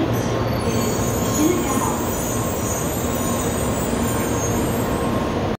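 N700A Shinkansen bullet train rolling slowly along the platform as it pulls into the station: a steady rumble with a low hum.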